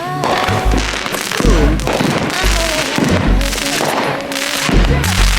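Fireworks banging and crackling over background music with a deep bass line.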